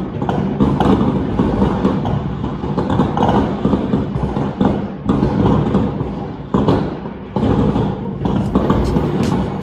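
Fireworks going off: a dense run of bangs and crackles, with sudden louder bangs about six and a half and seven and a half seconds in.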